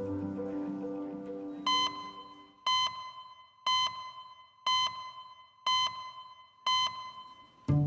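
Background music fading out over the first couple of seconds, then a short high electronic beep once a second, six times: a clock-tick sound effect counting off the seconds of an on-screen digital clock.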